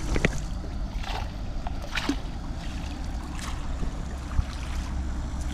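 Fast-flowing river water rushing steadily, a strong current, with a few brief splashes.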